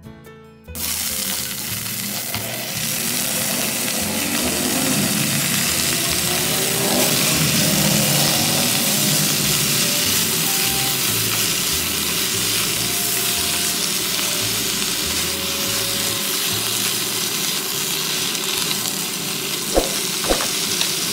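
Bok choy sizzling loudly in hot oil in a nonstick pot. The sizzle starts suddenly about a second in as the greens hit the oil, while a utensil stirs them, and the utensil knocks twice against the pot near the end.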